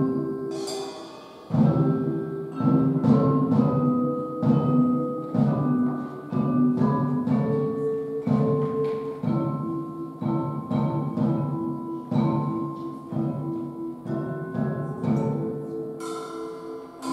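Live band music: a drum kit keeps a steady beat under held keyboard chords, with a brief drop-out about a second in. A cymbal crash rings out near the start and another near the end.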